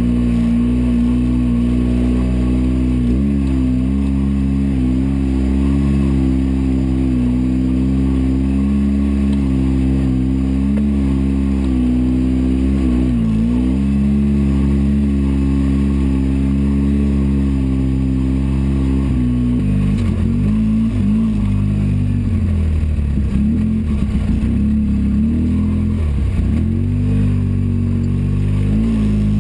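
Polaris RZR 800's twin-cylinder four-stroke engine running under way, heard from inside the cab. It holds steady revs with brief dips about three seconds in and again around thirteen seconds, then rises and falls repeatedly for several seconds before settling again near the end.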